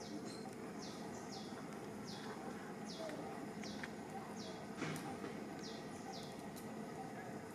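A run of short high chirps, each a quick downward sweep, repeating about once a second over steady background noise, with one sharp click about five seconds in.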